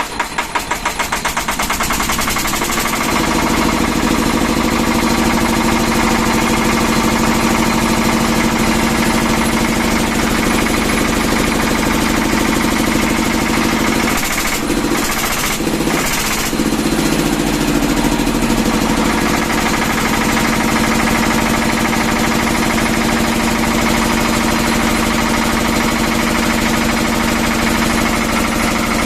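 Vishal Bharat 10 kW diesel generator engine catching: separate firing pulses quicken over the first couple of seconds, then it settles into a steady, loud run. About halfway through the note briefly wavers before it steadies again.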